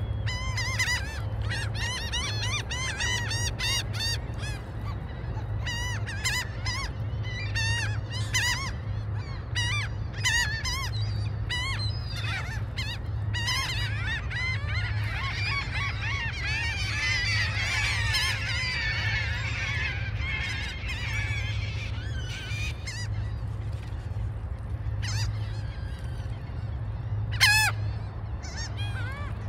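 A flock of gulls calling: short, repeated, nasal calls, thickening into many overlapping voices midway, with one loud close call near the end. A steady low rumble runs underneath.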